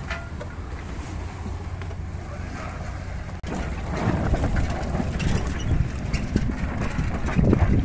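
Wind buffeting the microphone aboard a boat under way: a steady low rumble. It breaks off for an instant about a third of the way in and comes back somewhat louder.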